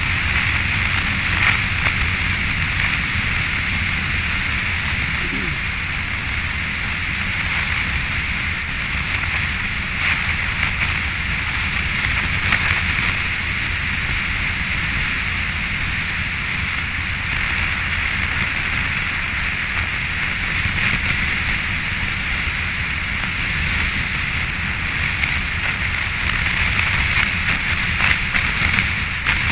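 Yamaha FJR1300 motorcycle on the move: steady wind rush on the microphone over a low drone of engine and tyres on a wet road.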